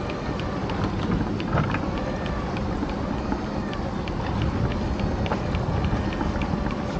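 Boat's motor and pot-hauler winch running steadily, with light regular clicking several times a second, over wind and choppy water. The winch is hauling up a string of lobster pots.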